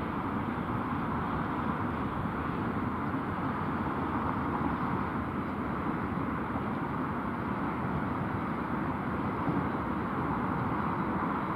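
Airbus A330 jet engines running as the airliner rolls along the runway, a steady even rumble and rush of engine noise.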